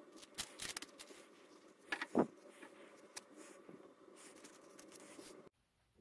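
A small brass padlock being rubbed in a cloth, with rustling and small metal clicks and a louder knock about two seconds in. The handling cuts off abruptly near the end.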